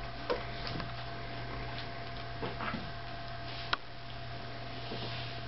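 Scattered short clicks and ticks over a steady low hum, with two sharper clicks: one just after the start and one a little past the middle.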